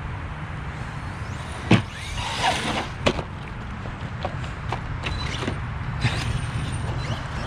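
Brushless electric RC monster truck (Redcat Volcano EPX Pro) running on grass, its motor whining up and down, with sharp knocks as it crashes and tumbles, the loudest a little under two seconds in and another about three seconds in, over a steady low rumble.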